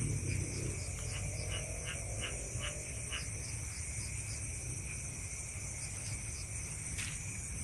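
Night insect chorus, a steady high trilling, with a quick run of about six short chirps between one and three seconds in.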